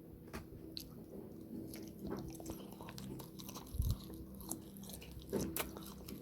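Crunchy chewing: a run of small scattered crunches and clicks, with a couple of duller knocks partway through.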